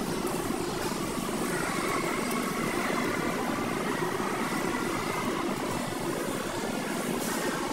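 Steady background hum and noise of a supermarket, with no distinct knocks from the cartons being put into the cart.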